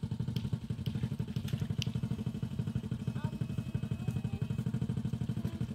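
Backpack electrofishing inverter (strum ikan) running: a low, fast, even pulsing buzz as current is sent through the poles into the water, with a few sharp clicks over it.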